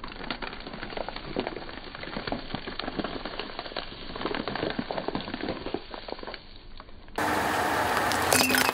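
A car tyre rolling slowly over a thin plastic tray of small cakes: the plastic crackles and crunches in many small snaps for about six seconds. Near the end the sound cuts to a louder steady noise.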